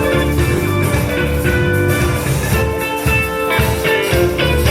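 Live band music, with a guitar playing lead over the band.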